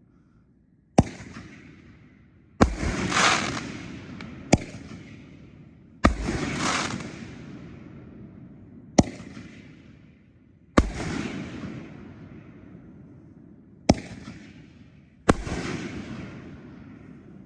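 4-inch canister firework shells firing in quick succession: about eight sharp bangs one to three seconds apart, several followed by a crackling, rumbling tail that dies away over a couple of seconds.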